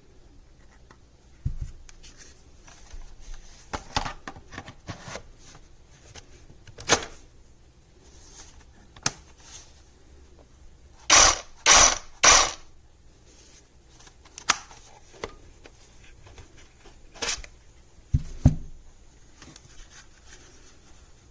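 Scattered handling sounds: light clicks and rustles, with three louder noisy bursts close together about eleven to twelve and a half seconds in and a couple of low knocks near the end. No saw motor is running.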